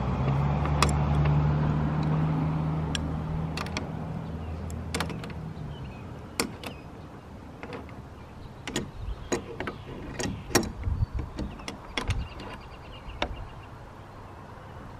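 A low, steady motor hum that fades away over the first six seconds. Through the second half come sharp metallic clicks and knocks as a steel eye bolt is worked with pliers on a metal bracket.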